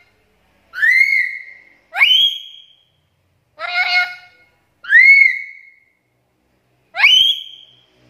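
Black-capped lory calling: five loud calls, each about a second long, separated by short silences. Four are clear whistles that glide steeply up and then arch over or level off. The middle call is harsher and buzzy.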